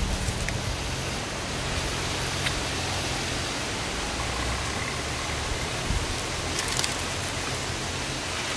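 A steady, even hiss of background noise with a few faint clicks.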